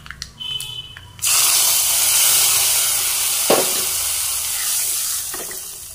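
A ladle of hot-oil tempering (mustard seeds, fenugreek, curry leaves, dried chillies and asafoetida) hitting a pot of sambar: a loud sizzle breaks out suddenly about a second in and slowly dies down. A single short knock comes partway through.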